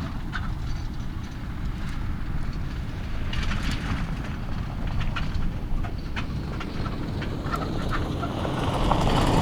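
A vehicle on the move: a steady low rumble with scattered clicks and rattles, growing louder near the end.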